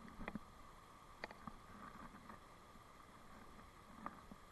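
Near silence: the faint steady rush of a stream, with a few light clicks, one about a second in and one near the end.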